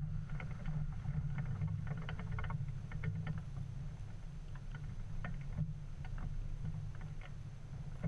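Polyester flag flapping in the wind, the fabric fluttering in quick runs of sharp snaps over a steady low rumble of wind on the microphone; the snapping grows sparser in the second half.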